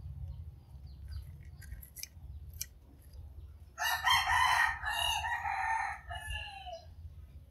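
A rooster crowing once, about four seconds in: a single call of a little over two seconds that drops in pitch at the end.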